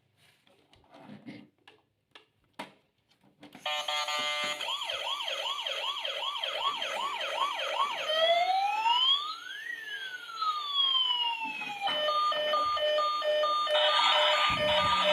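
Faint handling clicks, then a toy emergency vehicle's electronic siren switches on: first a fast rising yelp repeated about twice a second, then a slow wail rising and falling, then a rapid on-off beeping.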